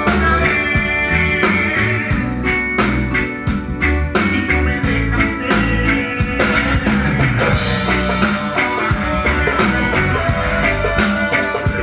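Live band music with guitar over a drum kit keeping a steady beat and a moving bass line.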